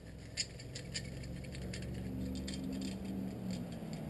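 Light, irregular clicks and rattles of small metal parts being handled, a few every second, over a low hum.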